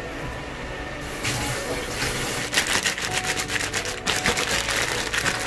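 Plastic bag crinkling and rustling as salted kyusen wrasse are kneaded by hand inside it to scrub off their slime. It starts about a second in and turns into dense, irregular crinkles from about two and a half seconds.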